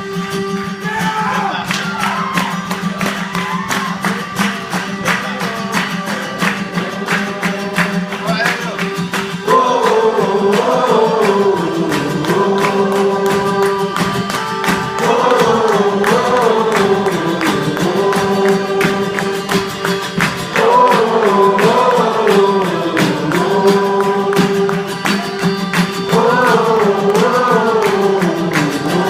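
Live acoustic band music without amplified instruments: a sustained drone, with guitar strumming underneath. A wavering melodic phrase repeats over the drone about every five and a half seconds, and the music gets louder about nine seconds in.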